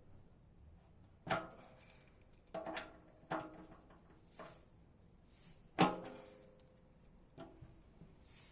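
A series of sharp knocks and clanks of hard parts and tools being handled, about half a dozen in all. The loudest comes about six seconds in and rings briefly, like metal.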